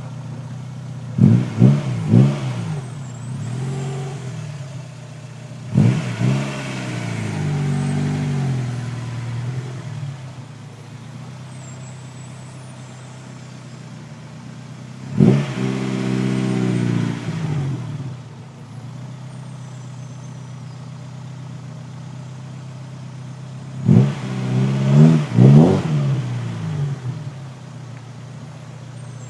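The squeaking noise of a vehicle, heard four times as a pitched squeal that starts suddenly and bends up and down in pitch for two to four seconds each time, over a steady engine hum.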